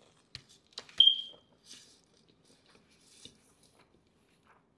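Close-miked eating: biting into a cheesy quesadilla, with a few sharp wet clicks and mouth smacks, the loudest about a second in followed by a short high ring, then soft chewing.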